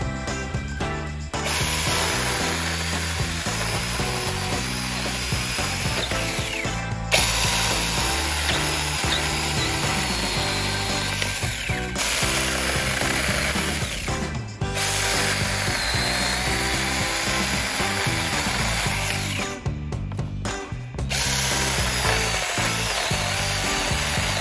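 Cordless mini chainsaw running on a Makita-compatible 18V battery and cutting through small branches. It runs in long stretches and stops briefly several times.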